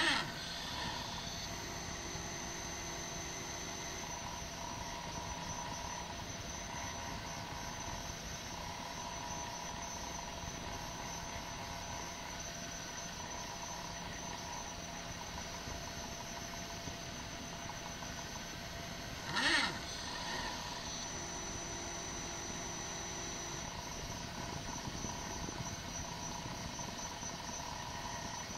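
Small stepper motors of a homemade mini CNC laser engraver whining in short runs as they move the laser over the plate, over a steady hiss. A brief, louder, sharp squeak comes twice, at the very start and about twenty seconds in.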